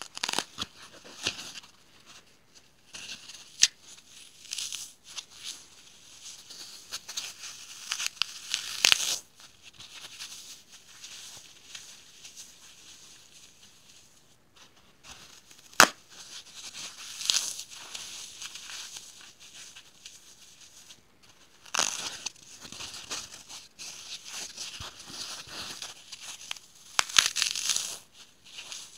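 Dry floral foam being crushed and crumbled between fingers: irregular crisp crunching and crackling, with a few sharp snaps and several louder spells of crunching.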